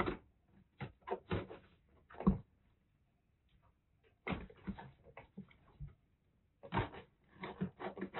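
Cats play-fighting at a cloth hammock hung in a wire cage: irregular bumps, scrapes and rattles as paws bat and pull at the hammock, in clusters with a quiet spell about three seconds in.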